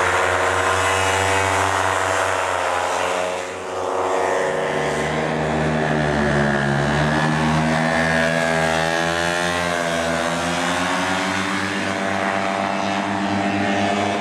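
Paramotor engine and propeller running, a steady drone whose pitch rises and falls as the throttle and speed change, with a brief dip about three and a half seconds in.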